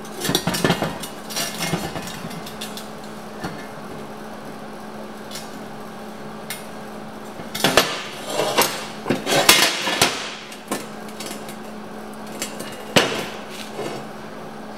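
Irregular metal-on-metal knocks and clanks as a steel box-section arm with a freshly welded round plate is shifted and turned over on a steel welding bench. The clanks come in a cluster at the start, a longer run around the middle and a single one near the end.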